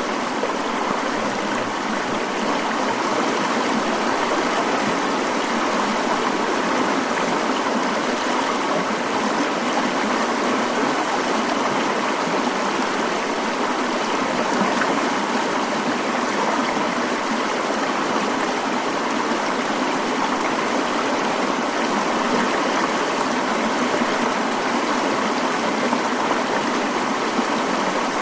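Mountain stream flowing steadily, an even rush of running water with no distinct splashes or changes.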